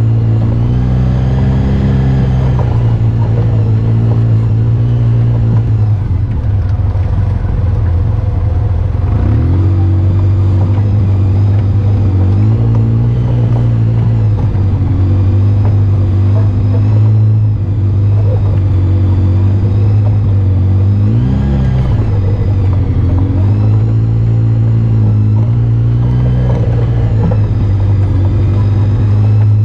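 Off-road vehicle engine running under changing throttle, its pitch rising and falling, with brief let-offs between pulls on the trail.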